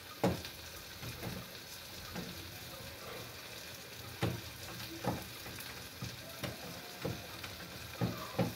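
Wooden cooking stick stirring and pressing stiff ugali (maize-meal porridge) in a steel pot, with irregular knocks and thuds of the stick against the pot over a steady faint hiss.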